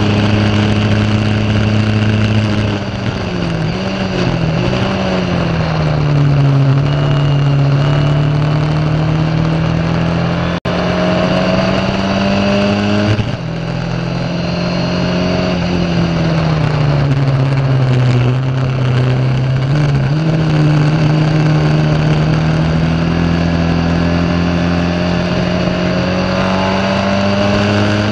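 Ford Kent 1600 four-cylinder engine of a Formula Ford racing car, heard onboard at racing revs. The revs fall away a few seconds in as the car slows for a corner, then climb steadily, fall again past the middle, and climb once more toward the end.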